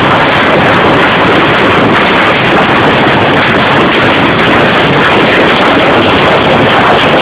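Hailstorm: hail and heavy rain pelting the ground in a loud, steady, unbroken rush.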